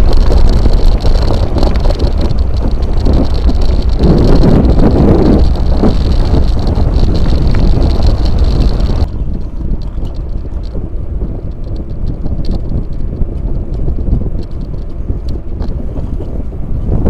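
Mountain bike ride heard from the bike: wind buffeting the camera microphone over tyre and frame rattle on a rough gravel track, cutting about nine seconds in to quieter, smoother wind and tyre noise on asphalt.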